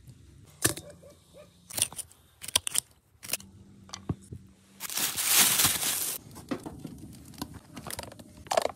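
Knife cutting raw pike into pieces on a wooden block: a handful of short, crunchy cuts and knocks of the blade on the wood. About five seconds in comes a louder hissing rush lasting about a second.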